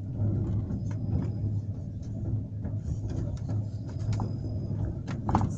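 71-911EM low-floor tram running, heard from inside the passenger cabin: a steady low rumble of wheels on rails and drive, with a faint high whine that comes and goes. A few short knocks come near the end.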